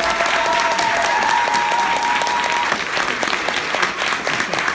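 Audience applauding as panel guests take the stage: dense, steady clapping from a large crowd, with a few long high-pitched cries held over it for the first two to three seconds.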